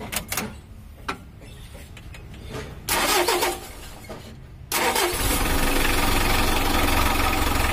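Mitsubishi L300's 4D56 four-cylinder diesel engine being started: a short loud burst about three seconds in, then about five seconds in the engine catches and runs steadily at idle. The engine is in untuned, factory-standard condition.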